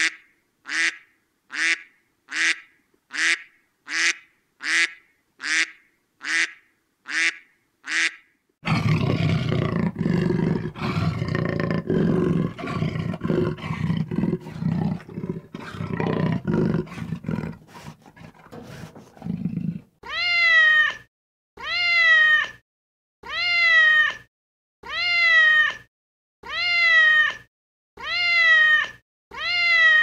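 Farm animals calling. First comes a quick run of short, sharp calls, a little over one a second. Then, about nine seconds in, a dense, lower jumble of calls that fades out, followed by a string of long, falling cries, each about a second long and repeating every second and a half.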